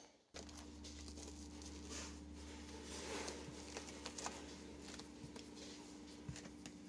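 Soft, scattered rustling and light scratching as a two-week-old puppy crawls over a quilted pad and foam, over a faint steady low hum.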